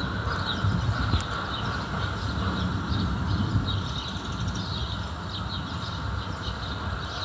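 Low rolling thunder rumbling and slowly dying away, with birds chirping over it.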